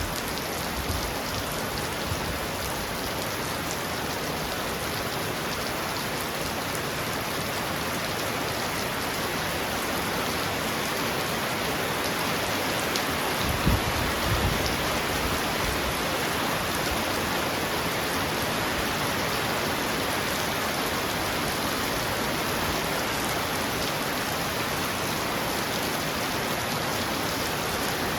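Heavy rain falling steadily on a roof, a dense, even hiss of drops. About halfway through there is a brief low thump or rumble.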